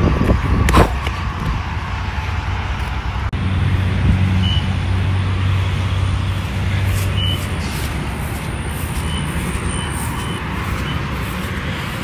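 Steady highway traffic noise, with a low engine hum from a vehicle that sets in about three seconds in and fades a few seconds later.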